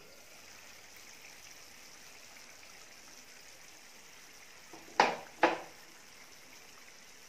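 Glass pan lid set down on the stove burner beside the pan, clinking twice about five seconds in, half a second apart. Underneath, a faint steady hiss.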